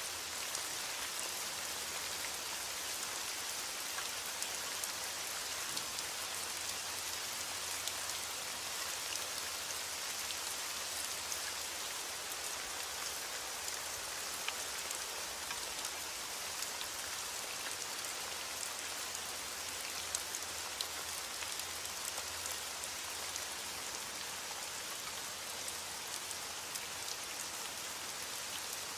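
Heavy rain on a window glass: a steady hiss with scattered small ticks of drops.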